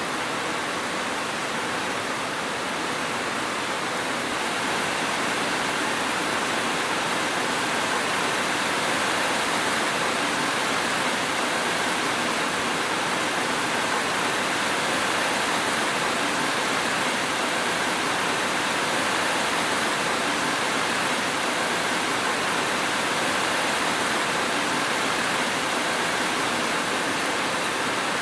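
Steady rain, a constant even hiss with no thunder, growing slightly louder about five seconds in.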